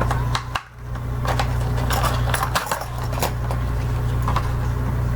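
Fishing lure's plastic packaging being opened by hand: a run of crinkles and clicks in the first three seconds, then only a few, over a steady low hum.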